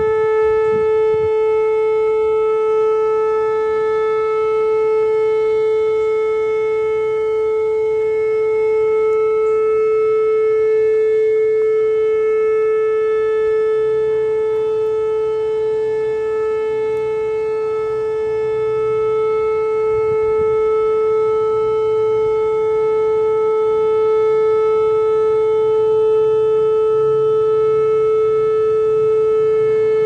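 Whelen WPS 2810 electronic outdoor warning siren sounding a steady 435 Hz tone that holds one pitch without rising or falling. It is far quieter than it should be, which the recorder takes for the siren running on half power.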